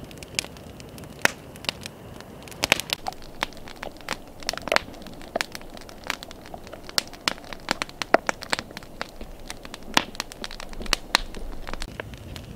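Wood campfire crackling, with irregular sharp pops and snaps from the burning wood.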